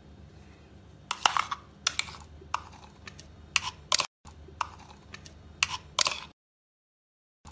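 Irregular sharp taps and knocks of stainless-steel mixer-grinder jars as thick ground nut paste is tipped and scraped from a small jar into a larger one. The sound stops abruptly about six seconds in.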